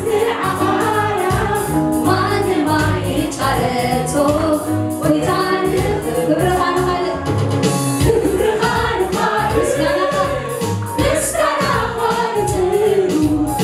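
Tigrinya gospel worship song sung live: a woman sings lead, with a choir of backing singers, over instrumental backing with a steady beat.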